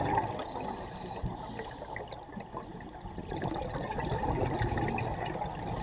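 Scuba divers' exhaled bubbles gurgling from their regulators, heard muffled underwater, swelling louder about three and a half seconds in.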